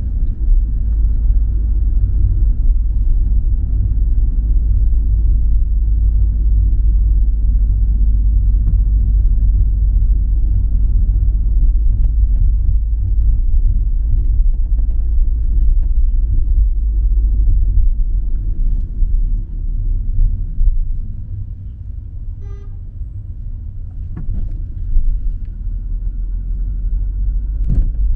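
Car driving along city roads: steady low engine and road rumble, easing off about three-quarters of the way through as the car slows. During the lull there is a short, pitched beep, like a horn toot, and a couple of sharp clicks.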